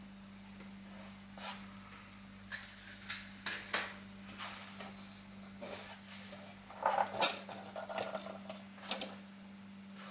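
Irregular metallic clicks, clinks and light knocks from handling a Feuerhand 276 tin-plate hurricane lantern, with a small cluster of louder clatter about seven seconds in and another clink near the end, over a steady low hum.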